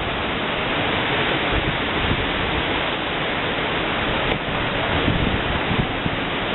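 Hurricane-force wind gusting and buffeting the microphone: a loud, steady rushing noise with irregular low rumbles and thumps.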